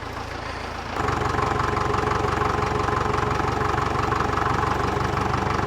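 Case 730 tractor engine running steadily, stepping up louder about a second in and then holding an even pace.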